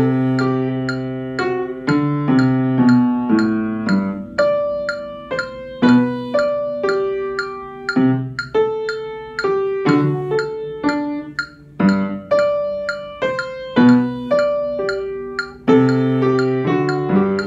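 Piano being played: a melody moves above low notes and chords that are struck and held about every two seconds.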